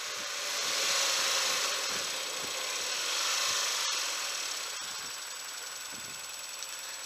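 Motorcycle running smoothly at road speed, with wind and road noise rushing over the microphone and swelling twice. There is a single sharp click about four seconds in.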